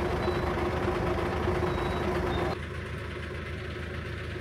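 PAZ bus engine running steadily with a constant hum. About two and a half seconds in, the sound drops abruptly to a quieter, duller level.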